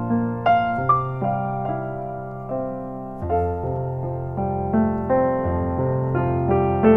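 Background piano music: single notes struck about once or twice a second over held low bass notes.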